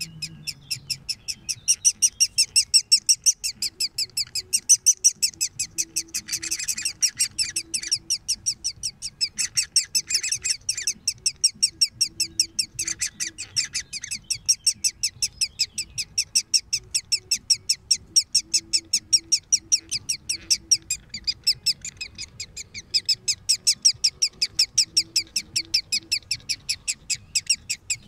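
Woodpecker nestlings in their tree-hole nest begging nonstop: a rapid, high-pitched chirping of about four to five calls a second, with three harsher, louder bursts in the first half.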